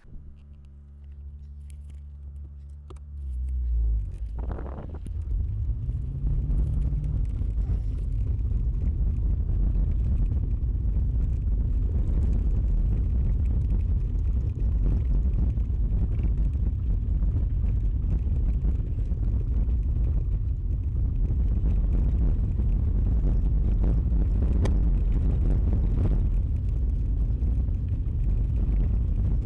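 Car driving along a rough dirt track, heard from inside the cabin: a steady low engine hum at first, the engine note rising about five seconds in, then a dense low rumble of engine and tyres on the bumpy road.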